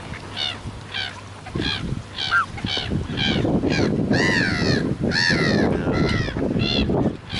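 Black-headed gulls and geese calling over one another, many short harsh calls in quick succession. A rough rustling noise rises underneath from about a second and a half in.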